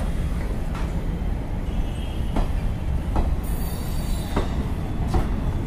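Mhow–Ratlam DEMU (diesel-electric multiple unit) passenger train running past, a steady low rumble broken by several sharp clacks of wheels over rail joints. A brief high hiss comes a little past the middle.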